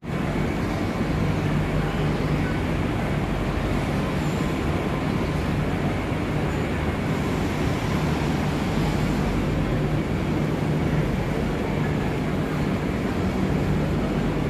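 Steady railway station ambience: a continuous low hum under an even rushing noise, with no distinct events.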